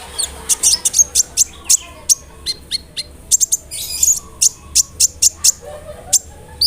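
Kolibri ninja sunbird singing: a rapid run of short, sharp, very high chirps, several a second.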